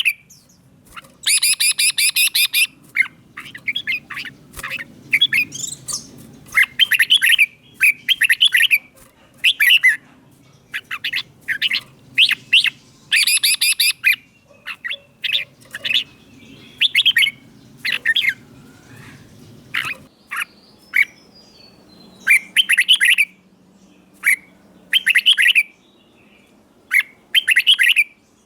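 Red-whiskered bulbul singing: short, clear whistled phrases repeated every second or so, with two longer, rapid buzzy runs, one near the start and one about halfway through.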